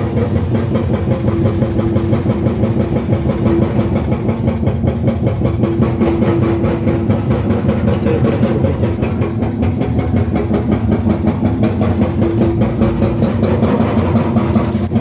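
Excavator-mounted hydraulic breaker hammering in a rapid, steady stream of blows over the excavator's running diesel engine, loud throughout.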